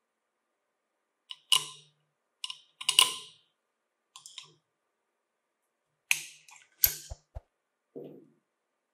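Sharp metal-on-metal clinks of two steel bolts being set into the holes of an angle grinder's flange nut and a screwdriver shaft knocking against them, in scattered single strikes with short ringing tails, starting about a second in. A few duller knocks come near the end.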